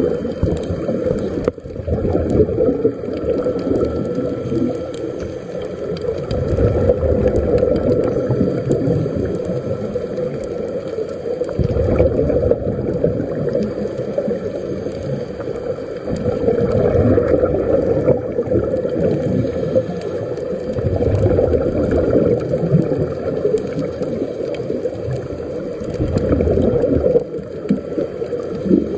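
Air bubbling and gurgling underwater, as picked up by a camera below the surface, with a low muffled sound that swells and eases every few seconds.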